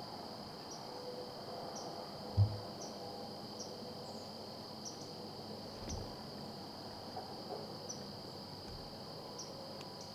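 Evening insect chorus: crickets trilling steadily in two high tones, with a short higher chirp repeating about once a second. A low thump sounds about two and a half seconds in, with two fainter ones later.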